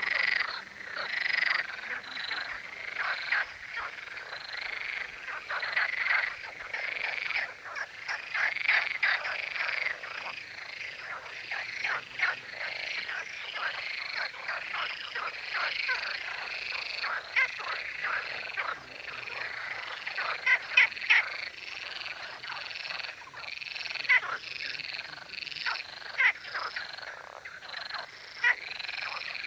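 A chorus of male frogs calling over one another, many rapid, rattling croaks overlapping without pause. The males are calling in competition to advertise themselves to females.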